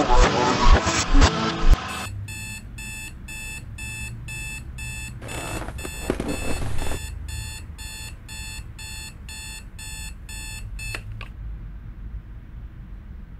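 Digital alarm clock beeping, a pitched electronic beep repeating about twice a second, which stops about eleven seconds in. Before the beeping starts, the first two seconds hold the tail of some music, which cuts off abruptly.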